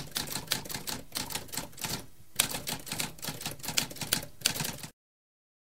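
Typewriter typing: a fast run of mechanical keystrokes with a short pause about two seconds in, cutting off abruptly near the end.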